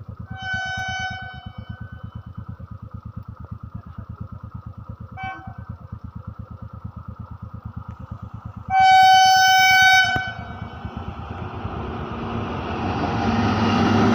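Indian train locomotive sounding its horn three times over a steady engine throb of about six beats a second: a short blast, a brief toot, then a long, loud blast. After the long blast a rushing rumble of the moving train swells and grows louder.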